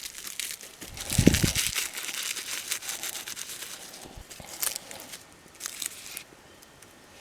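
Dry melaleuca paperbark crinkling and tearing as it is handled and pulled apart for tinder, with a soft thump about a second in and a few sharp crackles near the end.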